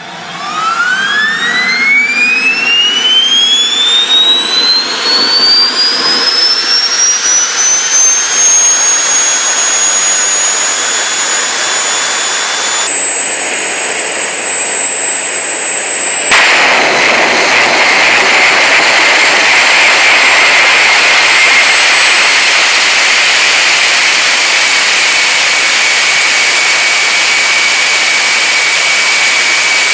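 Homemade turbojet engine spooling up: a whine climbs steeply for several seconds and levels into a high steady tone over the rush of the exhaust. A turbojet then runs hard, a loud steady jet roar with a constant high whine.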